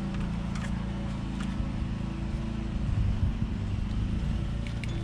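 A few light metal clicks from a socket and long extension bar being worked on the supercharger pulley, over a steady low hum.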